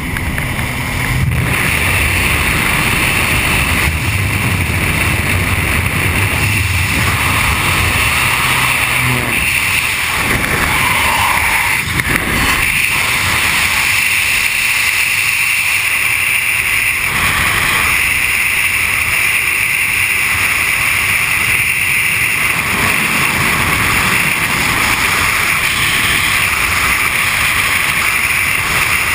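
Steady, loud rush of freefall wind over a skydiver's camera microphone. A low engine drone from the jump plane is heard underneath and fades out about nine seconds in.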